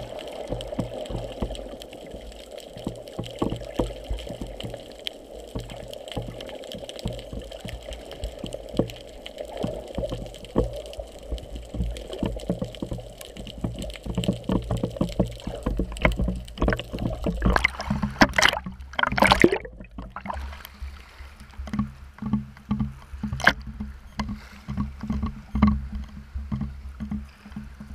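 Muffled underwater water noise with small clicks, heard through a GoPro's waterproof housing. About two-thirds of the way through, the camera breaks the surface with a splash, and water then sloshes against the housing in fairly regular low pulses.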